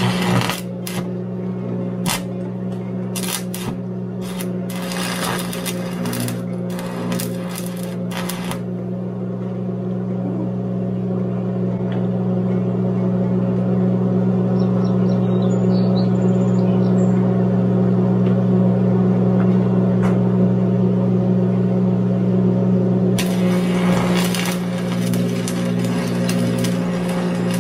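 Stick welding a bolt onto another bolt: the electric arc crackles and spits for the first eight seconds or so, stops, and starts again about 23 seconds in. A steady electrical hum runs underneath throughout.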